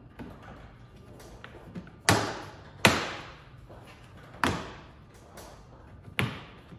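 Four sharp clunks as hands press and snap the plastic trim pieces around the Tesla Model 3's front trunk into place, each knock ringing out briefly.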